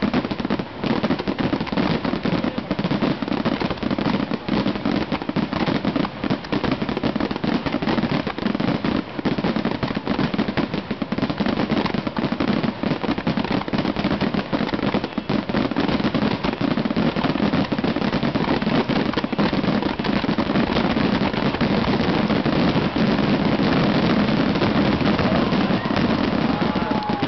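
Rapid-fire fireworks barrage: many shells bursting in quick succession, their bangs running together into a dense, unbroken rattle.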